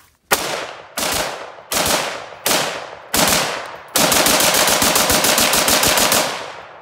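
AR-15 firing five single shots about two-thirds of a second apart, then a rapid run of about twenty shots in just over two seconds, as in bump firing.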